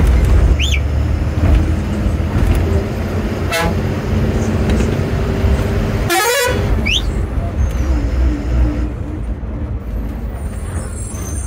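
Bus engine running steadily, heard from inside the driver's cabin, with a short, wavering horn toot about six seconds in.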